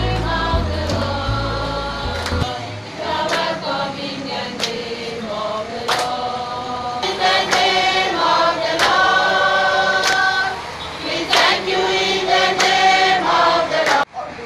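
A group singing a gospel song together, with occasional hand claps. A bass-heavy music track underneath stops about two and a half seconds in, leaving the unaccompanied voices.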